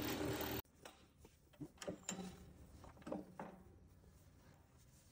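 A drill press running as it bores into a square ebony blank, cut off abruptly under a second in. After that come a few light knocks and clicks as the blank is handled on the wood lathe.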